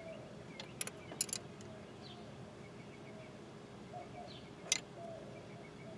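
Small steel wrench clicking on the thermostat-housing bleeder screw as it is turned closed: a few sharp metallic clicks, a cluster about a second in and the loudest near the end.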